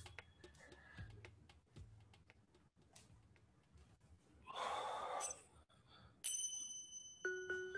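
A person's breathy exhale partway through, then ringing chime tones near the end: a high chime, then a lower one about a second later.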